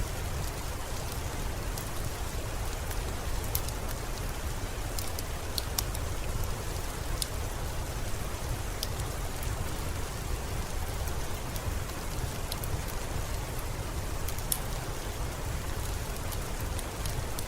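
Steady rainfall, a dense even hiss, with sparse sharp crackles of a wood fire popping at irregular moments.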